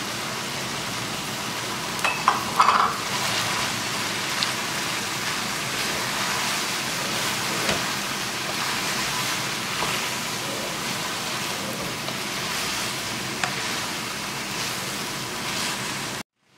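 Chicken and mixed vegetables sizzling in oil in a wok while being stirred and tossed with a wooden spatula. A few knocks and scrapes of the spatula against the pan, loudest about two to three seconds in. The sound cuts off suddenly just before the end.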